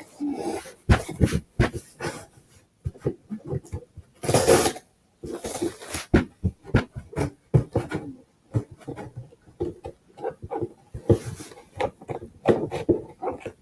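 A cardboard package being cut and torn open: irregular snips, scrapes and rustling of cardboard and packing, with one longer rasping tear about four and a half seconds in.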